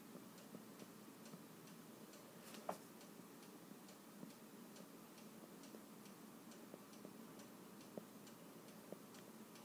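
Near silence: quiet room tone with faint, regular ticking and one slightly louder click about a third of the way in.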